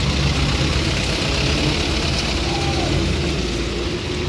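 Heavy truck's diesel engine running with a steady low drone, under a steady hiss.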